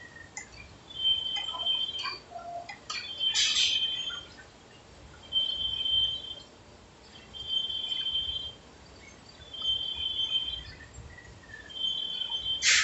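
Heavy lathe turning a large steel workpiece. A high-pitched squeal from the cutting comes about every two seconds and lasts around a second each time, with scattered metallic clicks and a sharp clatter near the end.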